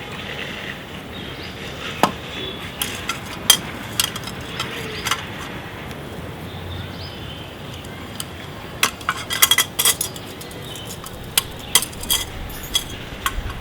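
Scattered metallic clicks and clinks as an LED headlight unit is handled and fitted into a motorcycle's headlight shell, with a quick flurry about nine to ten seconds in.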